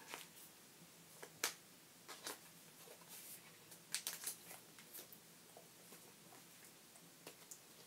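Faint handling of trading cards in the hands: soft rustles and a scattering of short sharp clicks as the cards are moved and turned, the loudest click about a second and a half in.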